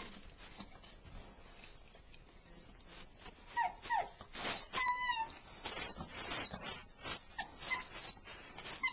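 Newborn beagle puppies squeaking in short, thin, high peeps, again and again, with a few lower falling whimpers around the middle. Scratching and scuffling of paws on the plastic floor of the whelping box runs underneath.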